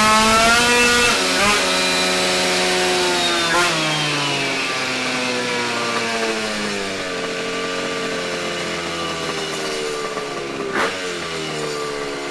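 Yamaha Aerox's small two-stroke scooter engine running hard on a dyno, then winding down in a long falling note as the throttle comes off and the revs drop over several seconds. A short sharp knock comes near the end, after which the engine note rises a little.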